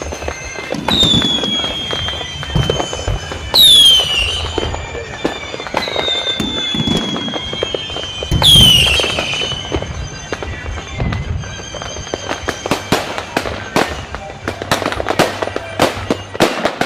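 Fireworks display: dull booms of shells bursting, with several whistling shells, each a high whistle falling slowly in pitch. The two loudest whistles come at about 4 and 9 seconds. In the last few seconds there is a fast run of crackling pops.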